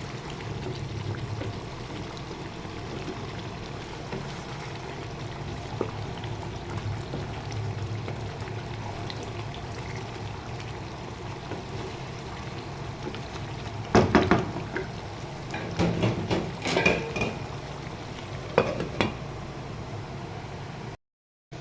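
Spoon or ladle clattering and scraping against a cooking pot in a cluster of knocks about two-thirds of the way through, over a steady low hum.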